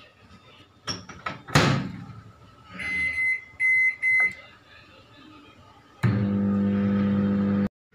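Microwave oven door clacked shut, then a few keypad beeps as the cooking time is set to two minutes. About six seconds in, the oven starts with a steady hum, which cuts off suddenly near the end.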